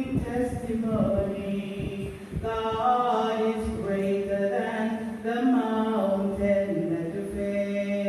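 Several voices singing a slow hymn together in harmony, holding long notes and moving from note to note.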